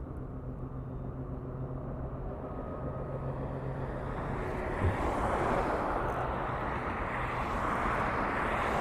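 A motor vehicle's engine hums steadily, and the rush of an approaching vehicle grows louder through the second half. There is a short knock about five seconds in.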